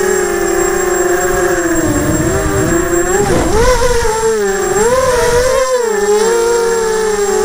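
Graupner Alpha250 racing quadcopter's electric motors and propellers whining, heard from on board, the pitch swooping up and down as the throttle changes through its manoeuvres. A low rush of wind comes in about two seconds in.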